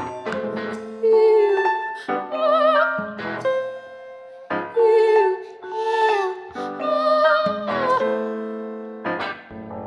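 A woman's voice singing long notes with vibrato, some gliding down, over sustained electric keyboard chords, in a contemporary classical piece.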